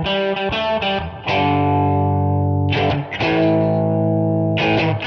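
Outro music: distorted electric guitar chords, strummed and left to ring, with a fresh strum every second or so.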